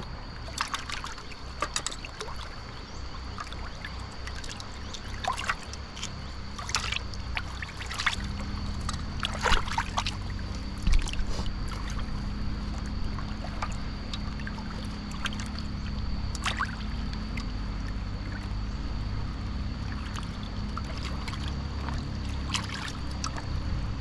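Running river water, with a thin steady high tone throughout and scattered sharp clicks and taps, the loudest about ten seconds in.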